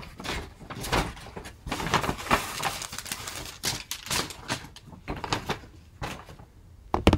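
Plastic packaging crinkling and rustling in irregular bursts as items are handled and put away, with a sharp knock near the end.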